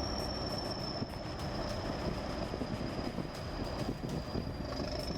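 Heavy earthmoving machine running steadily, a dense low rumble with a thin high whine over it that sags slightly and steps up a little near the end.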